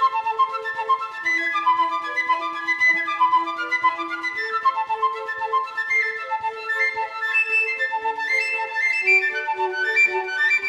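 Instrumental background music: a melody of quick notes over long held lower notes.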